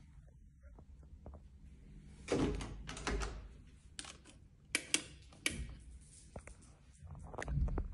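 Sharp clicks from a wall light switch and the clack and thud of an interior door being opened, among rustling bursts.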